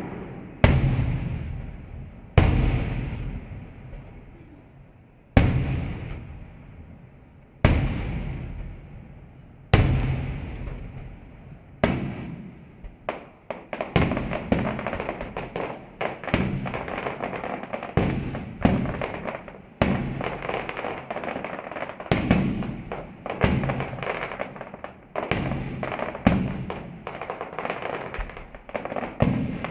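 Fireworks display: single loud shell bursts about every two seconds, each echoing and dying away. From about twelve seconds in come rapid volleys of many bursts a second.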